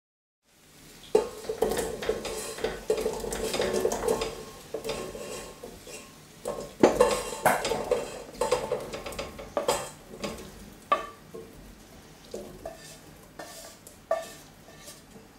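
Diced raw potato scraped off a metal spoon into a stainless steel pot, with repeated clinks and knocks of metal on metal. The clatter is busiest in the first half and thins to single knocks later.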